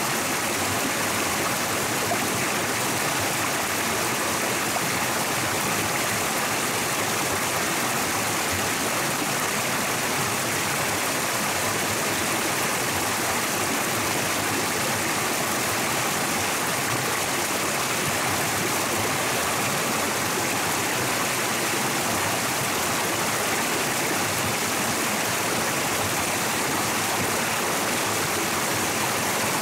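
Flowing stream water rushing steadily, an even hiss with no breaks or changes.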